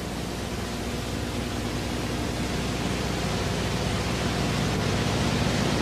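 Steady hiss of an old analogue videotape recording with a low hum beneath it, slowly growing louder.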